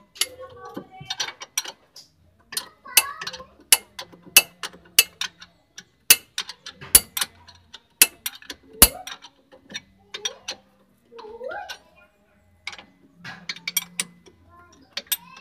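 Hand tools clicking and clinking irregularly as a wrench and ratchet work the nut off a ball joint stud on a vehicle's lower suspension.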